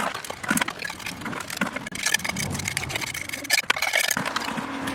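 Repeated scraping and knocking of a tool working wet concrete into a form to patch an old concrete step, with a low steady hum coming in near the end.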